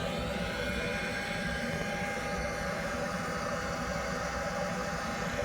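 Waste-oil furnace running: a steady rush of air driven by its bilge blower through the combustion chamber and heat exchanger, with a faint steady tone over it.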